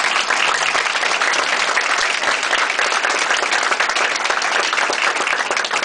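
Audience applauding steadily at the end of an acceptance speech.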